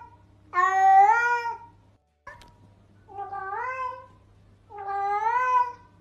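Domestic cat meowing three times, each meow drawn out for about a second, rising in pitch and then falling away; the second meow is quieter than the other two.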